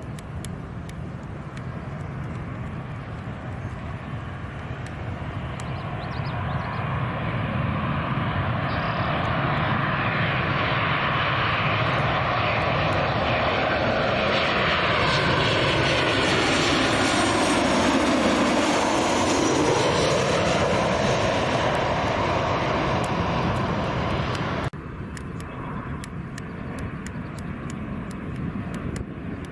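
Airliner passing close by: its engine noise builds over several seconds and peaks with a falling pitch as it goes past. It drops off suddenly near the end.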